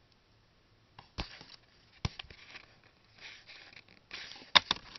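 Close-up handling noise as fingers and a wooden toothpick work small polymer clay pieces: a few light knocks and taps with rustling between them, and a cluster of sharper clicks near the end.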